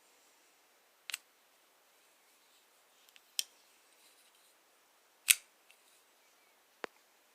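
Kershaw Gravel 2065X folding pocket knife clicking as its blade is opened and closed: four sharp metallic clicks a second or two apart, the loudest about five seconds in.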